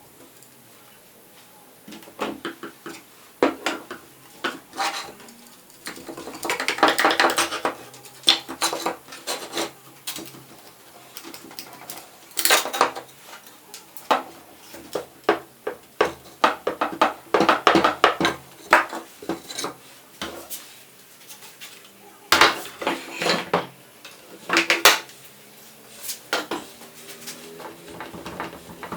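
Irregular clinks and knocks of hard objects being handled: tools and chair parts being picked up, set down and worked during the chair repair. Short sharp strikes come in uneven clusters, some with a brief metallic ring.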